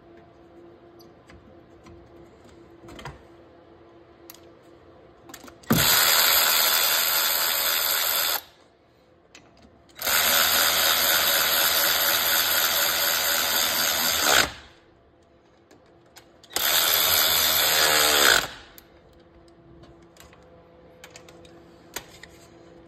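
Cordless electric ratchet running in three bursts, of about two and a half, four and a half and two seconds, while driving the thermostat housing bolts on a 5.7 HEMI. Its pitch drops near the end of the last run as the bolt seats.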